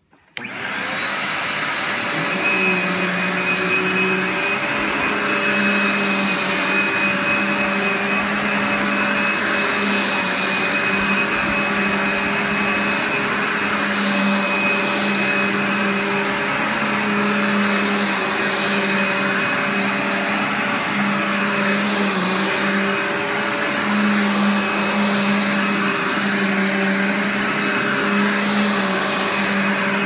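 Simplicity Synergy upright vacuum switched on, its motor spinning up within about a second, then running steadily with a high whine over a hum as it is pushed over carpet.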